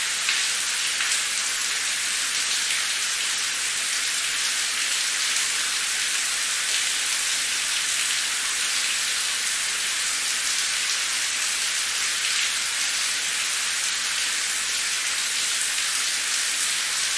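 Steady rain falling on a paved street: an even, high hiss with faint scattered drop ticks.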